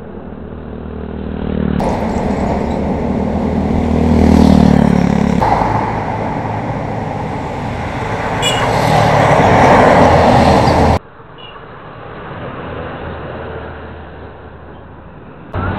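Vehicles passing close by on a road, their engine and tyre noise swelling twice as they go by, with a motorcycle horn honking briefly about halfway through.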